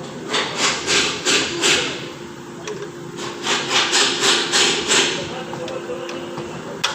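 Two runs of quick scraping strokes, roughly three a second, with a short sharp click near the end.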